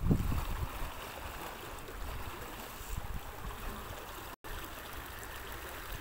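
Floodwater flowing and washing steadily, with a louder low rumble right at the start. The sound cuts out for an instant a little past four seconds in.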